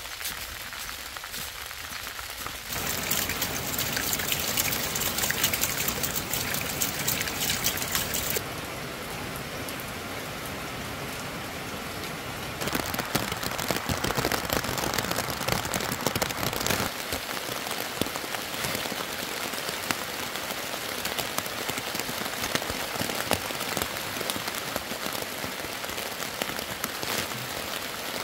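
Steady rain falling on wet ground and black plastic mulch, a dense haze of drop hits. Its sound changes abruptly several times.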